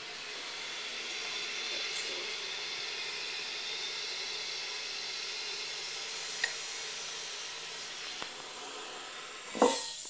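A steady hiss, then near the end a short, loud scrape and clunk of porcelain as the lid of a toilet tank is handled.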